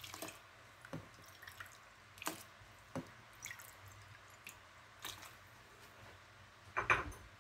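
Faint scattered drips and small splashes of water running off a plate into a pressure cooker pot of stock and oats, with a few light knocks. A short, louder noise comes near the end.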